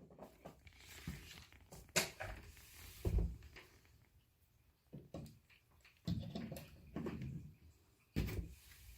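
Objects being handled at close range: scattered knocks, clicks and short rustles, with sharper thumps about two and three seconds in and again near the end.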